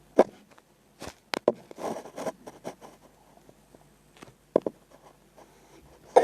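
Handling noise: several sharp clicks and a short run of scraping rustles, spread irregularly with quiet gaps between them.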